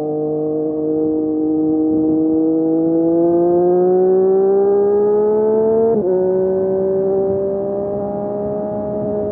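Triumph Street Triple RS inline three-cylinder engine through an SC Project S1 slip-on exhaust, rising in pitch under acceleration. About six seconds in the pitch drops suddenly at a gear change, then the engine holds a steady note.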